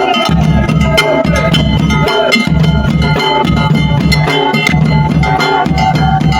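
Music with drums and a heavy bass beat, and a melody winding over it.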